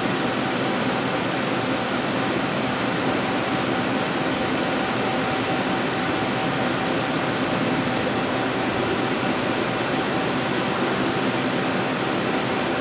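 Steady machinery hum and hiss with a faint constant tone, unbroken throughout.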